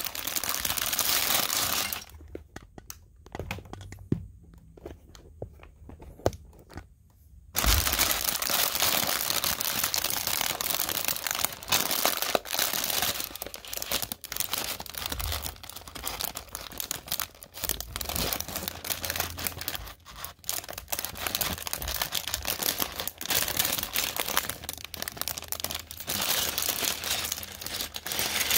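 LEGO set packaging being torn open and handled: dense crinkling and tearing with many small clicks. About two seconds in it drops to a few scattered soft clicks for several seconds, then resumes.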